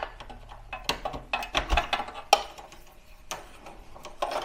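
SATA data cables being handled and plugged into a desktop PC's motherboard and drive connectors: a scattered series of light plastic clicks and taps, the sharpest a little past two seconds in.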